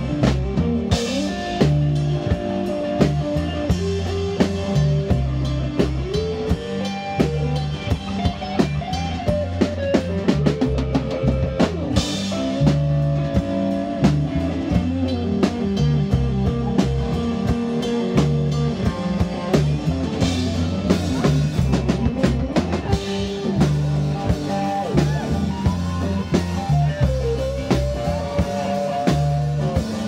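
A live rock band playing an instrumental passage with no singing: a drum kit keeps a steady beat with cymbal crashes, under electric guitar.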